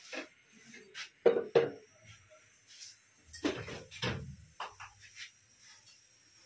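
A few sharp clanks and knocks of steel kitchenware and dishes being handled, the loudest two close together just over a second in, then two more a couple of seconds later and a few light clicks.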